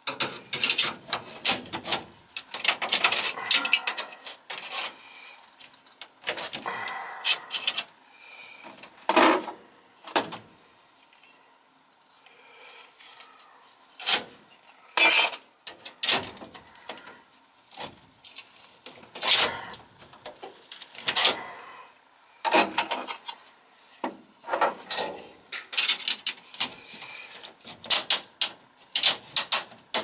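Sheet-metal duct pieces being handled and fitted together by hand: irregular metallic clanks, rattles and scraping, with a short lull about twelve seconds in.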